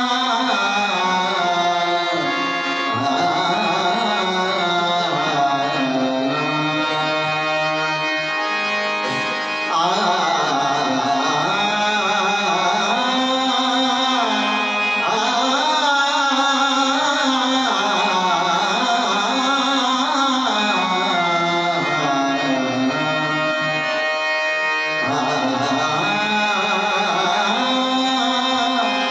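Live bhajan music: a man singing a melodic line over a sustained harmonium, accompanied by tabla.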